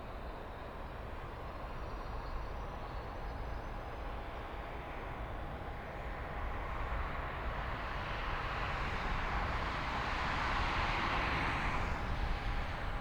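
Cessna 650 Citation III business jet's twin Garrett TFE731 turbofans, heard on its arrival, a steady jet whine under a rush of engine noise that swells over the second half and peaks near the end as the jet draws closest.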